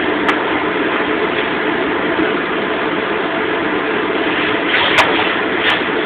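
Commercial wok range's gas burners and exhaust hood running with a steady rushing noise while they heat carbon steel woks, with a few short clinks.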